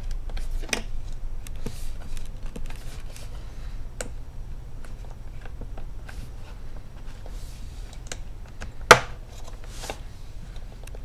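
Plastic bottom case of an Asus laptop being pried open with a small flathead screwdriver: scattered small clicks and scrapes of the tool working along the seam, with one loud sharp snap about nine seconds in as a retaining clip pops loose.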